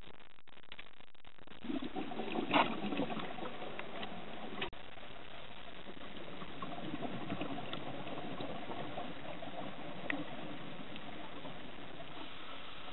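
Scuba diver's exhaled air bubbling out of the regulator, heard through an underwater camera housing: two rushes of bubbles, from about two to four and a half seconds in and again from about six to nine seconds, over a steady underwater hiss.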